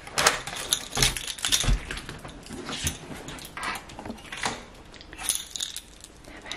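A bunch of keys jangling and clinking as they are handled, with irregular clicks and knocks throughout, loudest in the first second.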